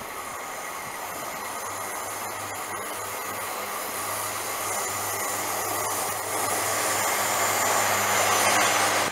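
Class 143 Pacer diesel multiple unit approaching along the track, its underfloor diesel engine and wheels making a steady hum and rushing noise that grows steadily louder as it draws near.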